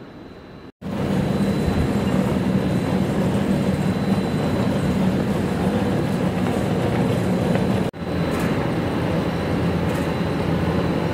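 Production-line machinery for PVC mesh anti-slip matting running with a steady hum and rumble. It cuts in suddenly about a second in, after a quieter stretch of outdoor background, and breaks off for an instant about two-thirds of the way through.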